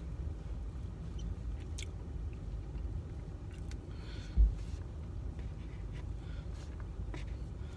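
A person chewing mouthfuls of rice, with small scattered clicks and one low thump about four and a half seconds in, over a steady low rumble.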